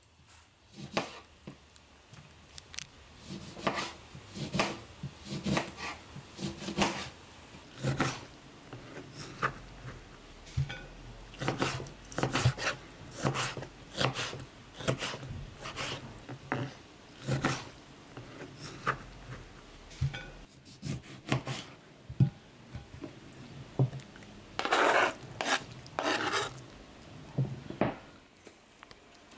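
Kitchen knife chopping lemon on a plastic cutting board: short, irregular cuts about one to two a second, with a longer scrape near the end.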